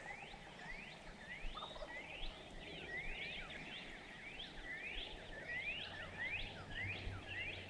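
Faint chorus of spring peepers: many short, rising high peeps overlapping each other, several every second.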